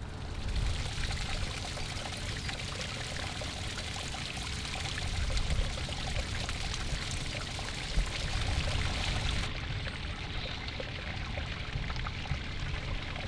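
Stream water running and trickling: a steady rushing hiss that starts suddenly. About two-thirds of the way through, its brightest hiss drops away.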